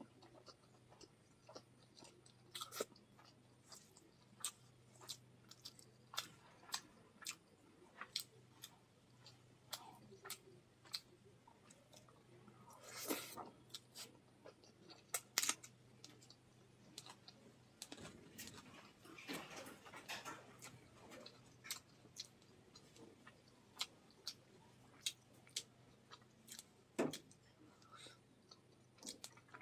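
Close-miked eating sounds of rice and fish curry eaten by hand: soft chewing with many sharp wet lip smacks and mouth clicks. A few longer, noisier stretches come about thirteen seconds in and again around twenty seconds.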